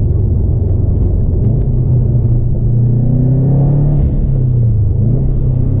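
A Subaru's flat-four engine under way, heard from inside the cabin: a steady, loud drone whose pitch climbs in the middle, dips near the end and picks up again.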